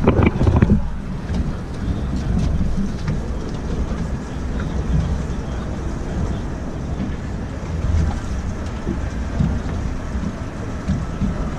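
Wind rumbling over the microphone on an open boat deck, a low, uneven rumble that rises and falls.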